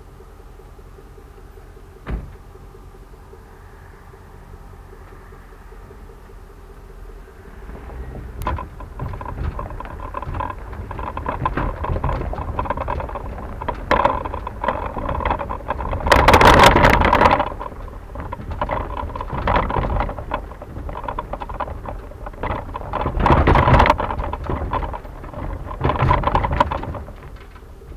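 Aluminum ATV trailer being backed up, heard from a camera mounted on it: a steady low hum with a single knock early on, then from about eight seconds in a louder rattling and tyre crunch over gravel that swells three times, loudest a little past the middle.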